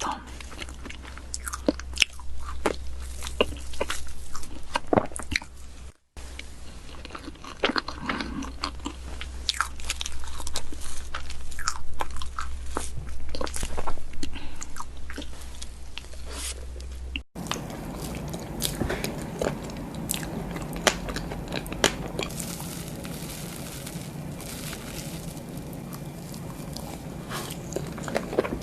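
A person biting and chewing cakes close to the microphone, with crisp crunching crackles and wet chewing sounds. The sound changes abruptly twice, where one eating clip cuts to another.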